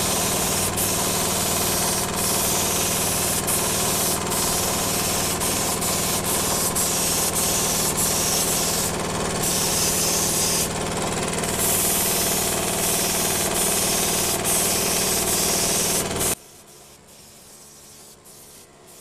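Gravity-feed cup spray gun spraying gelcoat at about 50 PSI: a loud hiss of air in passes, broken off briefly several times as the trigger is let go, over a steady low machine hum. Both stop abruptly near the end.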